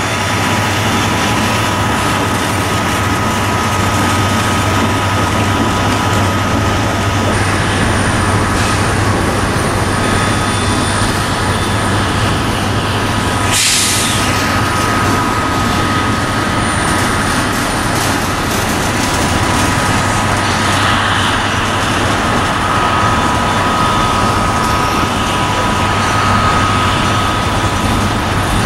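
Several diesel-electric freight locomotives running together under power, a loud steady deep engine rumble with a faint steady high whine over it. A short hiss about halfway through.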